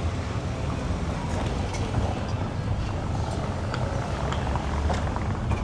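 City street traffic: a steady low rumble of passing motor vehicles, with a few faint ticks and clicks over it.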